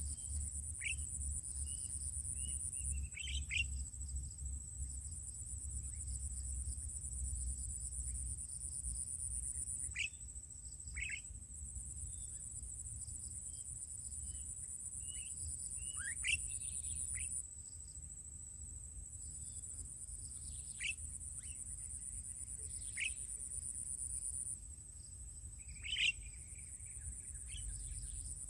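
Birds calling with short, scattered sweeping chirps, over a steady very high-pitched buzz that stops and starts several times, with a low rumble underneath.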